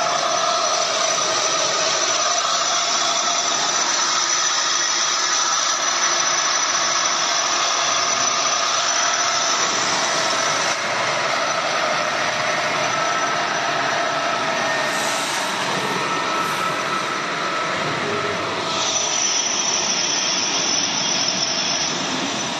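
Hoston C6266Y heavy manual engine lathe running under power with its chuck spinning: steady mechanical noise from the headstock gearing with a whine in several fixed pitches. The tone shifts about halfway through and again some seconds later.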